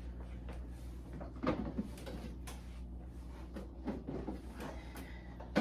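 Food containers being handled and set down while a refrigerator is emptied: a few knocks and clunks, the loudest about a second and a half in and another near the end, over a steady low hum.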